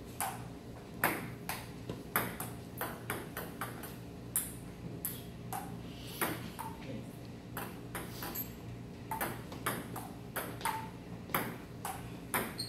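Table tennis rally: the ball clicking off the rubber paddles and bouncing on the table, a quick irregular run of sharp clicks, about two to three a second, some with a short ping.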